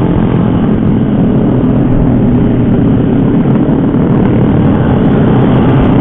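Motorcycle engine running at a steady cruising speed, heard under a loud, steady rumble of riding wind on the microphone.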